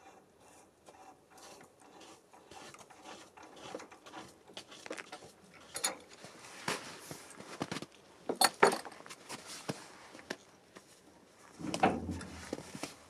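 Metal clinks, clicks and scrapes of a steel hitch pin being handled in a rusty trailer drawbar hitch, with a few sharp clinks about halfway through and a duller thump near the end.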